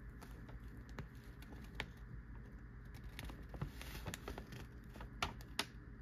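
Newspaper pages crinkling and rustling as they are held and shifted, with scattered sharp paper crackles, the loudest a little before the end.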